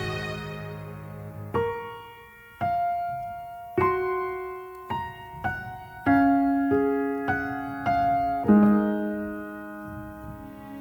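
Background music: solo piano playing a slow, gentle melody, single notes and chords struck one after another and left to ring and fade.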